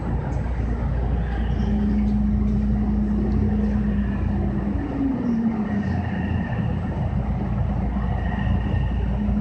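JR West 225-5100 series electric train rolling slowly through a station, heard from inside the driver's cab. The steady rumble of wheels on rail sits under a traction motor and inverter whine that holds one pitch, glides down about five seconds in, then steadies again.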